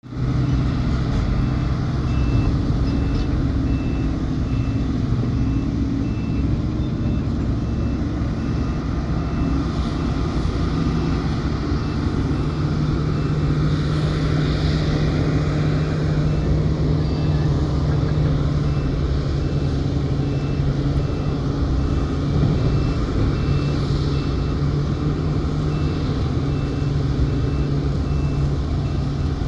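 Heavy diesel engines of a mining excavator and a Komatsu HD785 haul truck running under load during truck loading, a steady low drone. A reversing alarm beeps over it at an even pace.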